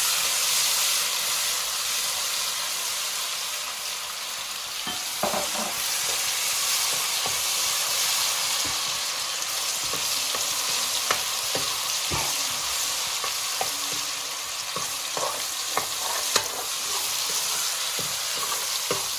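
Ginger-garlic paste and dried red chillies sizzling steadily in hot oil in a pan, with a few sharp clicks of a spoon or spatula against the pan as it is stirred.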